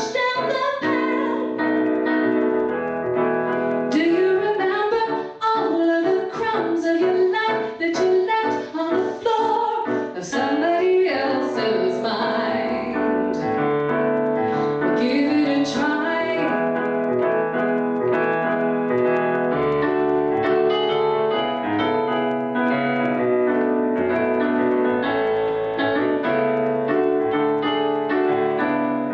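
A woman singing a slow song to her own piano accompaniment on a Roland keyboard; about halfway through the voice stops and the piano plays on alone.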